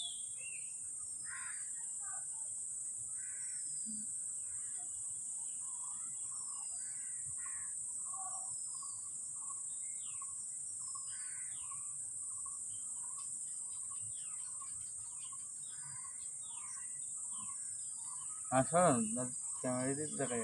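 Outdoor ambience: a steady high-pitched insect drone, with birds calling over it in short falling chirps about once a second and a quick run of repeated notes midway. Near the end, a short loud burst of a person's voice cuts in.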